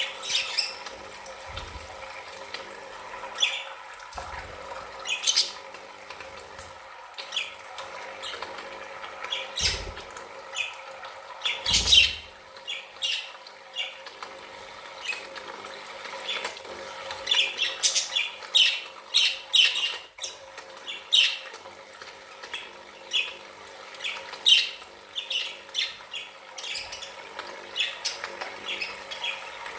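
Pet budgerigars chattering in many short chirps and squawks, busiest in the second half, with two low thumps about ten and twelve seconds in.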